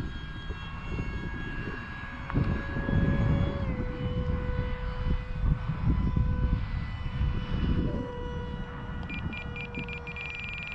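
Twin five-bladed electric ducted fans of a Dynam A-10 model jet whining in flight, the vacuum-cleaner sound these fans are known for; the whine steps down in pitch a little under four seconds in. A gusty low rumble of wind on the microphone runs under it, and near the end comes a rapid run of high electronic beeps.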